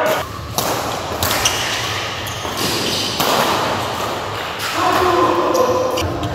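Badminton rally in an echoing indoor hall: rackets strike the shuttlecock in sharp smacks at irregular intervals, and a player shouts briefly about five seconds in.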